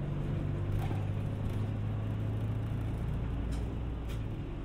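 City route bus engine running with a steady low drone, heard from inside the passenger cabin, with a few faint clicks; the low engine note drops away near the end.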